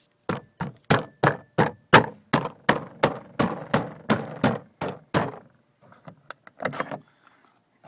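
Pontiac Vibe interior door trim panel being knocked into place, about fifteen sharp knocks at roughly three a second, then a few lighter ones. The panel's clips are being snapped back into the door.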